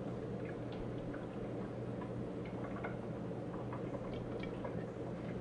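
Motor oil pouring from a jug through a plastic funnel into the engine, a steady quiet trickle with scattered small ticks and drips, over a constant low hum.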